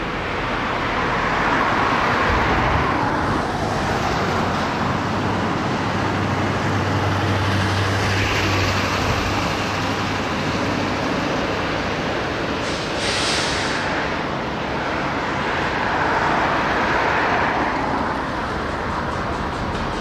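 Motor vehicles passing: noise swelling and fading twice, with a low steady engine hum in between and a short hiss about 13 seconds in.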